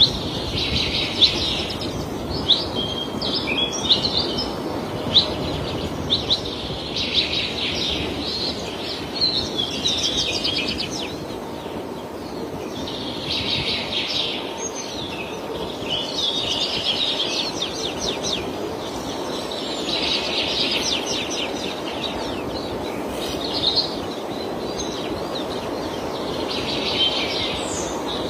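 Birds singing in bursts of rapid high chirps that recur every few seconds, over a steady background noise.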